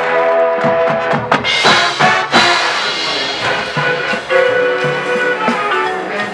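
High school marching band playing live: the brass section holds loud sustained chords, with a cluster of drum hits in the first couple of seconds.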